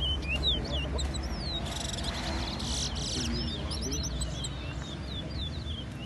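Caged male towa towa finches singing fast, chirpy whistled song, notes sweeping up and down in quick succession, as two birds sing against each other in a ramping match. A buzzy, rattling stretch comes about two seconds in.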